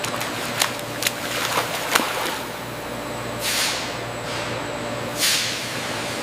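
Steady processing-line machinery noise with a low hum, a few sharp mechanical clicks in the first two seconds, and two short hissing bursts like compressed air, about two seconds apart, later on.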